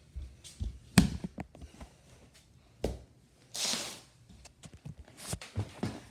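Scattered knocks and thumps of a handheld phone being picked up and moved about, with one sharp knock about a second in and a short rustle around three and a half seconds.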